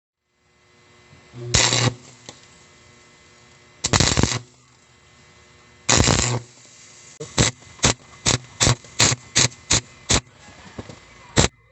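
Electric welder arcing in stop-start bursts onto a broken bolt's stub: three half-second bursts of crackle, then a quick run of short stabs about two or three a second, over a steady low hum.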